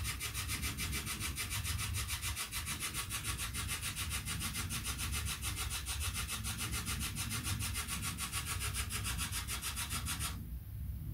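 Spirit box sweeping through radio stations: static chopped into rapid, evenly spaced pulses, several a second, with no voices coming through. It cuts off suddenly about ten seconds in.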